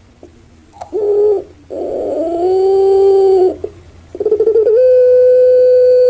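Puter pelung (ringneck dove, Streptopelia risoria) cooing loudly. A short coo comes about a second in, then a longer held coo. After a brief pause, a rattling start settles into a long, steady drawn-out coo.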